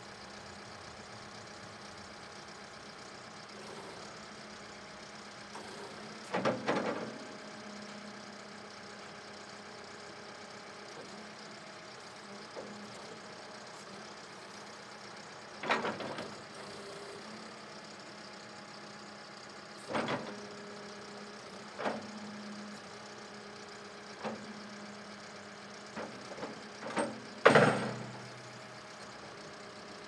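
Backhoe loader's diesel engine idling steadily while the front loader is worked. Sharp clunks from the loader arms and bucket come every few seconds, in a cluster near the end, which holds the loudest one.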